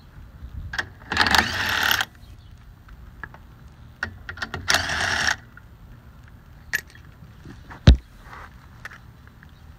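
Cordless impact driver with a socket running the lug nuts of a car wheel loose in two short bursts, about a second in and about five seconds in. Light clicks between them and a single sharp knock near the end.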